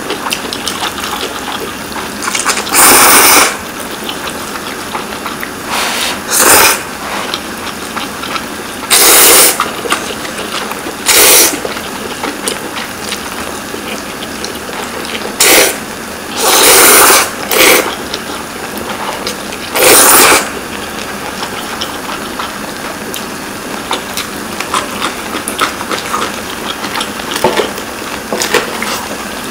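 People loudly slurping mouthfuls of instant ramen noodles, about nine slurps over a steady low hiss, with none in the last third.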